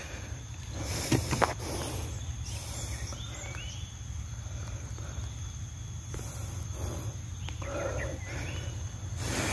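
Rural outdoor ambience with insects droning steadily at a high pitch, a few short animal calls, and a couple of knocks a little over a second in.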